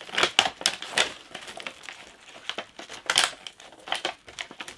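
Clear plastic blister packaging of a boxed figurine crinkling and crackling as it is handled and pulled apart, in a run of irregular sharp crackles.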